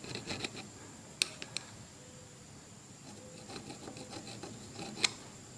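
Phillips screwdriver scraping old rubber grip and grip glue off the end of an ATV handlebar in short rasping strokes, with a few sharp clicks of the tool against the bar, about a second in and again near the end.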